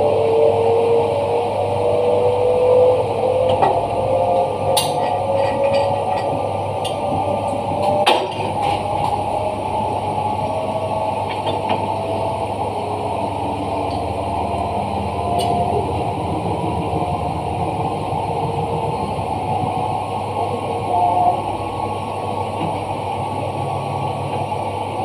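Italclean Liberty 200 dry-cleaning machine running: a steady motor hum with a whine that rises slowly in pitch over the first several seconds, a few light clicks, and one sharp knock about eight seconds in.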